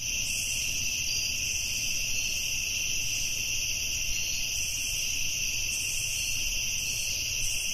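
Intro sound effect: a steady, shrill high-pitched buzz, much like an insect chorus, held without a break.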